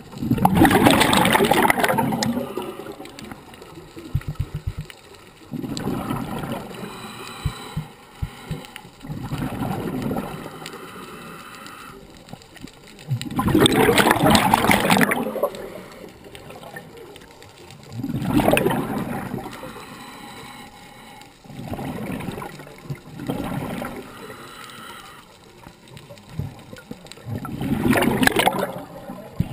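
Scuba regulator breathing underwater: repeated rushes of exhaled bubbles, each lasting one to three seconds, the loudest four coming about every five to ten seconds, with weaker breathing sounds between them.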